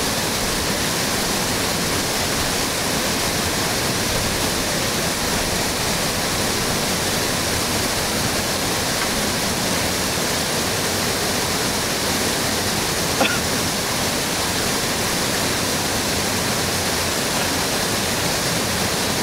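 Steady rushing of a steep whitewater rapid pouring through a rock gorge, with one short knock about two-thirds of the way through.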